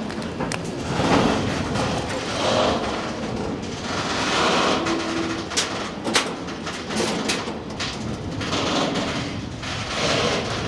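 Network Rail ballast hopper wagons of an engineering freight train rolling past with a steady rail rumble. Their wheels click sharply and irregularly over rail joints, with a short squeal about five seconds in. The last wagon passes and moves away near the end.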